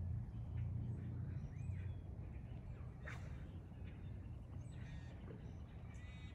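Outdoor ambience: a low rumble that fades after about two seconds, with a few short, faint bird calls scattered through.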